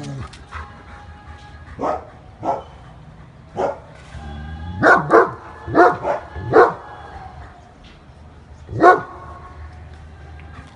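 German shepherd barking in short, sharp single barks at irregular spacing, about nine in all, with a quick run of them in the middle.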